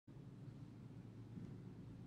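Near silence: room tone with a low, steady hum.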